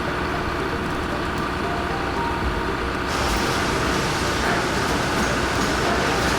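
Heavy truck engine running steadily under load. About three seconds in, the sound abruptly gains more hiss.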